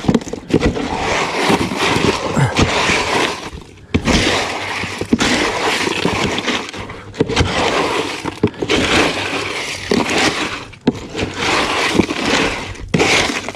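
Ice being shoveled up, cubes crunching, scraping and clattering against each other, with short breaks about four and eleven seconds in.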